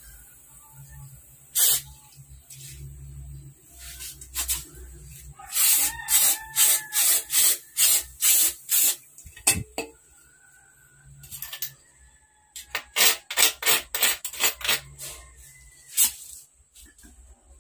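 Aerosol insecticide spray can hissing in short bursts, in runs of about two a second with a few single bursts between.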